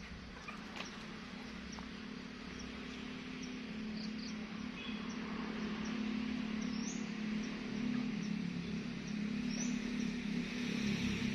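A low, steady engine hum that grows gradually louder, with scattered faint high chirps.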